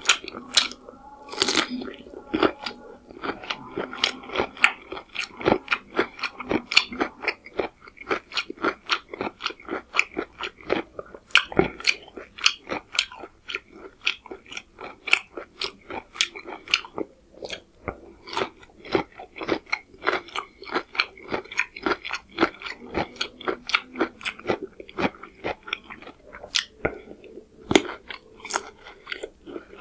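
Close-miked eating: chewing and crunching bites of raw cucumber between mouthfuls of chicken curry and pulao rice, a steady run of crisp crunches a few times a second.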